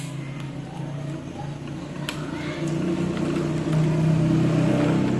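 Inkjet printer's motor running, a steady hum that grows louder in the second half and then stops near the end, with a couple of sharp clicks.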